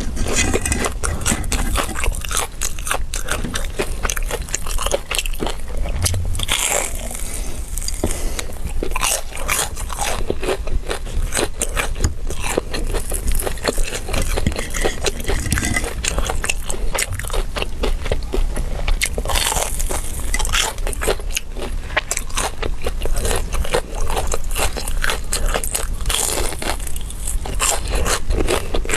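Close-miked biting and chewing of a fried breaded chicken cutlet, with dense, irregular crunches throughout.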